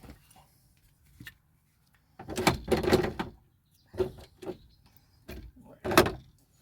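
Seatbelt parts and mounting bolt being handled: a rattling, sliding noise lasting a little over a second starting about two seconds in, then several separate knocks and clunks, the loudest near the end.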